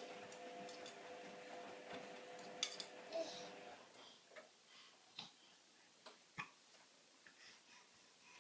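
Washing machine with a faint, steady hum that stops a little over three and a half seconds in, with scattered faint clicks and taps.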